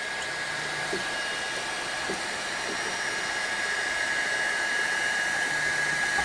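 Kingroon 3D printer's cooling fan running with a steady whir and a thin high whine. Two short low hums come from the stepper motors, about half a second in and near the end, as the print head moves to the next levelling point.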